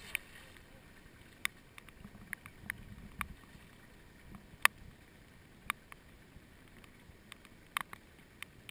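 Shallow muddy floodwater splashing and sloshing as someone wades and scoops in it with a basket, with scattered sharp ticks about once a second.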